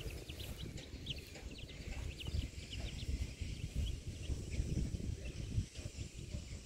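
Small chicks peeping: many short, high peeps, several a second, over a low rumbling noise.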